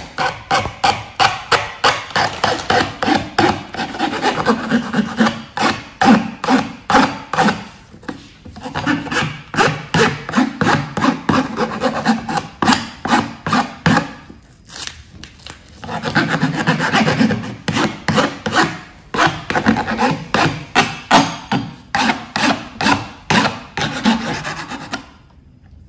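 Metal file drawn back and forth across the edge of a copper plate, about three rasping strokes a second, in bouts broken by short pauses about a third and half of the way in. The filing bevels off the plate's sharp edge and corner.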